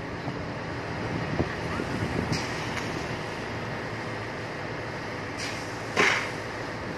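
Fire engine running steadily to drive its pump while a fire hose sprays a high-pressure water jet, with a brief loud hiss about six seconds in.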